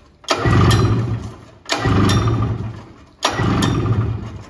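Rope pull-starter cranking the two-stroke twin engine of a 1978 Polaris Cobra 440 snowmobile: three pulls about a second and a half apart, each a quick run of compression strokes as the engine turns over and dies away. It never fires, which the owner takes for a lack of spark.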